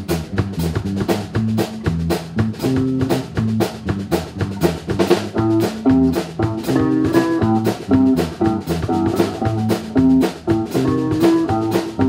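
Live band playing an instrumental passage: a drum kit keeps a steady beat of about four hits a second under electric guitar, keyboard and low bass notes.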